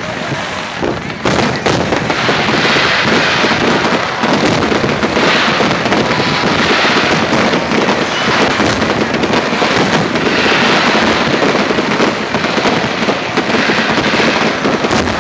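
Fireworks exploding in quick succession: a dense, continuous crackling and popping that swells louder several times.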